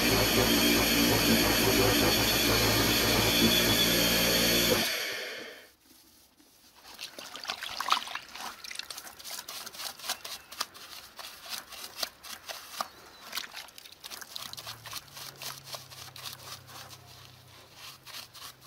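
A motor-driven machine runs loudly and steadily with a strong hiss, then stops about five seconds in. Scattered light clicks and knocks follow, as of metal fittings being handled, with a faint low hum near the end.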